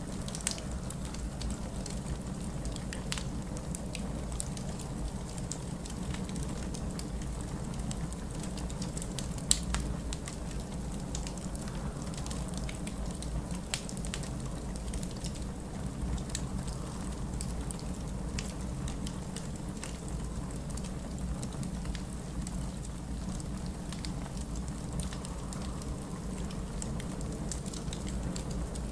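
Wood fire in a fireplace crackling with scattered pops, one louder pop about nine and a half seconds in, over a steady low rumble.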